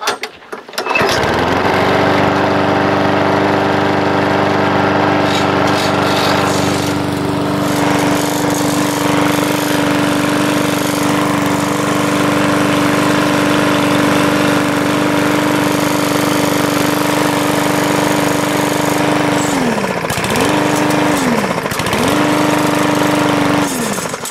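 Walk-behind lawn mower's overhead-valve engine pull-started, catching at once and running steadily. Near the end the engine-stop bail is let go twice, so the engine winds down, and squeezed back on before it dies, so it picks back up each time; the third release lets it wind down and stop. Picking back up like this is usually the sign of good compression (90 PSI on the gauge).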